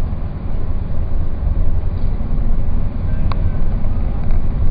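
Steady low rumble of a moving car, road and wind noise heard from inside, with one brief click about three seconds in.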